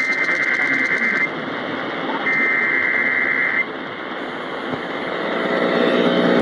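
Emergency Alert System SAME header data bursts received over AM radio: two harsh, buzzing digital bursts of about a second and a half each, a second apart, over steady AM static and hiss. Near the end a low buzzing tone builds up in level.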